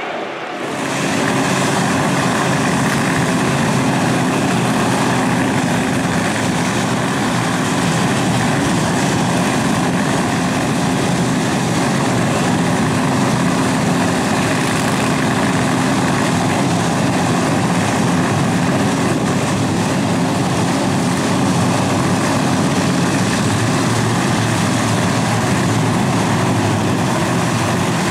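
Drag-racing engine idling loudly and steadily, holding one pitch with no revs.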